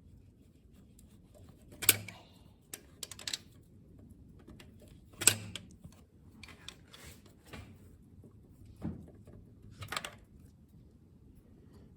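Scattered sharp metal clicks and clanks of hand tools and small engine parts being handled, the loudest about two and five seconds in, as lifters are worked out of a big-block Chevy 454.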